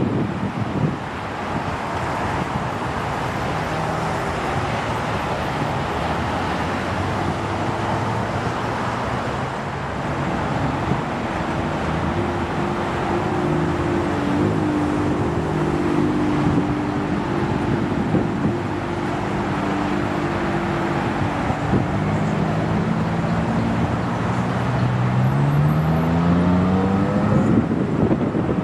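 Jet aircraft noise: a steady broad hum of jet engines, then a Boeing 737 on final approach whose engine tones grow louder and rise in pitch over the last several seconds as it comes in to touch down.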